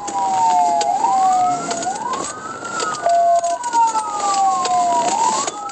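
Police car sirens on wail: each rises quickly in pitch and then falls slowly, about every two and a half seconds, with two sirens overlapping out of step. There is a short steady beep about three seconds in.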